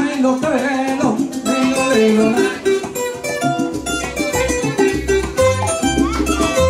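Live band playing a salsa-style number: quick plucked lines on cuatro and guitar, with a bass line coming in about four seconds in.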